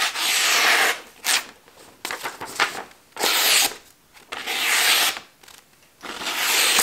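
Freshly sharpened Trubal Bowie-Axe blade slicing through a sheet of printer paper in about four strokes, each a crisp hiss under a second long, with shorter paper rustles between. The clean slicing is the sign of a crisp, sharp edge.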